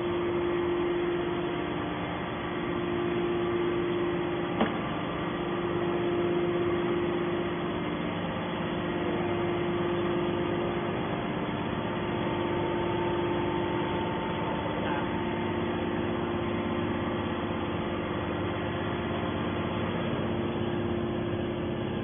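Hydraulic scrap metal baler's motor and pump running steadily with the rams at rest, a constant hum with one short click about four and a half seconds in.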